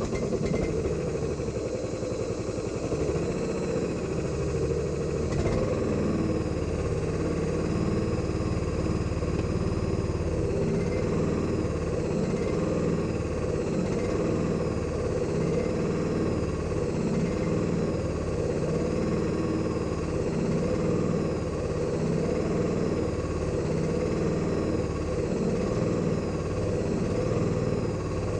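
Vehicle engine running steadily, as on a short drive.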